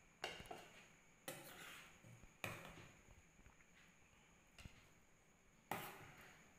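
Steel kitchen utensils clinking: about five sharp knocks, each ringing briefly, spaced roughly a second apart.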